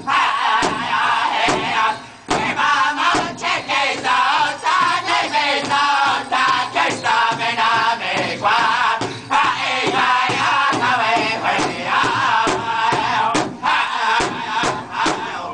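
A powwow drum group of men singing together in chant-like unison around one large shared drum, which they strike in a steady, even beat with padded drumsticks.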